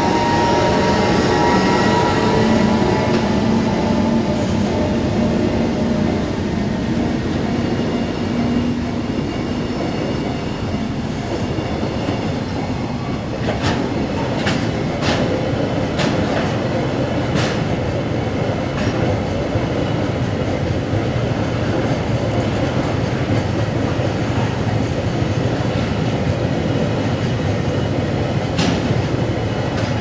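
Freight train passing at a level crossing: a blue electric locomotive followed by a long line of oil tank wagons rumbling steadily over the rails. The locomotive hums during the first ten seconds or so. A quick run of sharp wheel clacks comes at rail joints about halfway through, and one more near the end.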